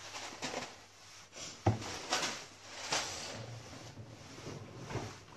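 Household handling noises: a few knocks and rustles, the sharpest knock about a third of the way in.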